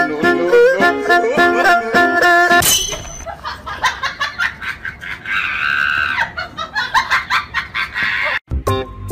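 Background music: a bright plucked-string tune that changes to a different track with a steady beat about two and a half seconds in, then breaks off briefly near the end.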